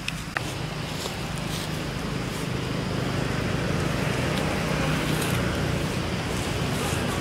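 A motor vehicle engine running steadily nearby, a low hum that grows slightly louder, with one sharp click just after the start.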